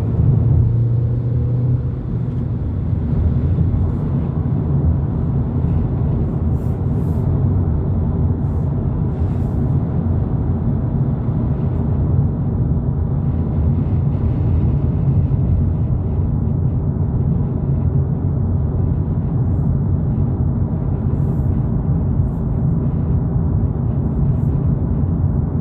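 Volkswagen Polo GTI (2022) cruising at steady freeway speed: a steady low drone of engine and tyre/road noise. A stronger engine note stands out in the first two seconds, then it settles.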